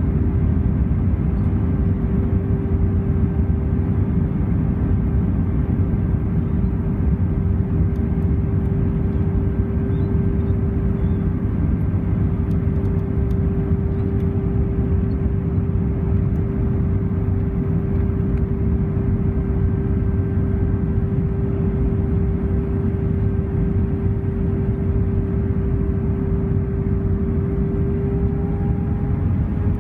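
Airbus A320 cabin noise on approach, heard from a seat over the wing: a steady rush of airflow and engine drone with a steady hum running through it. Near the end the hum shifts slightly higher and a second, higher hum joins it.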